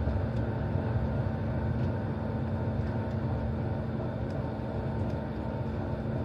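Train running at speed, heard from inside the carriage: a steady low rumble of the wheels on the track under a constant droning hum, with a few faint ticks.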